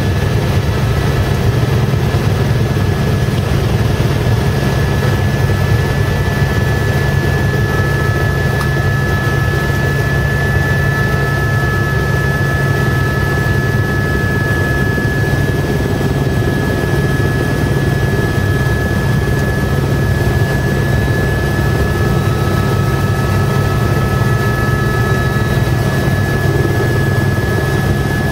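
Helicopter heard from inside the cabin on its landing approach: a loud, steady drone of rotor and engine with a constant high whine over it, a second, lower whine joining about a third of the way in and dropping out near the end.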